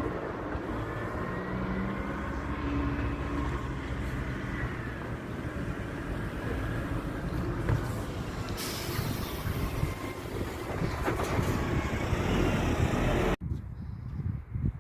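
Steady rumble of a large road vehicle, cutting off abruptly near the end.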